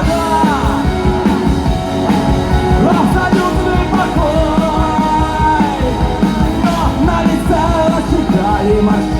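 Rock band music: a melody line bending up and down in pitch over dense, steady backing.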